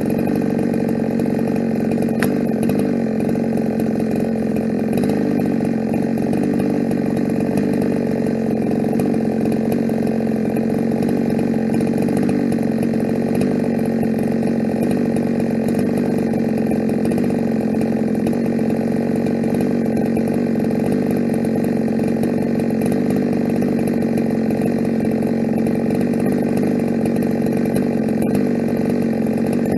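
Ported Husqvarna 372 two-stroke chainsaw running at high, steady speed, holding its pitch through a long cut in firewood.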